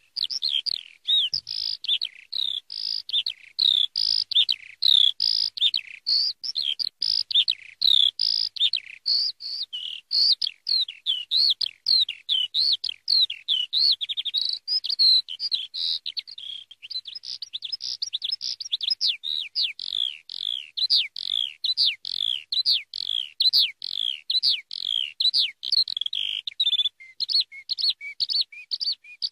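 Eurasian skylark singing: a long, unbroken stream of rapid, high chirping and warbling notes with no pauses.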